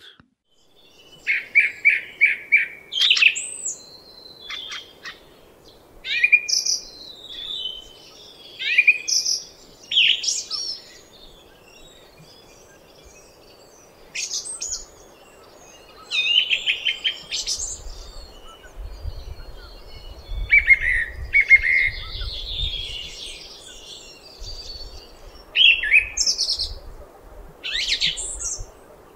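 Song thrush singing: varied phrases of whistles and quick notes with short pauses between, some notes repeated several times in a row. A low rumble comes in about halfway through.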